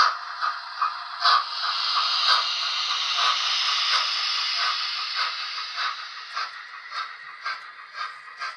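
Trix HO scale Flying Scotsman model steam locomotive running with its onboard sound: a steam hiss starts about a second in and fades out after about five seconds. Under the hiss runs a regular clicking beat of about two clicks a second.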